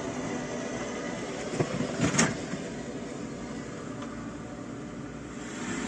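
Farm harvest machinery running steadily, with a couple of short knocks or rattles about one and a half to two seconds in, the second one the loudest.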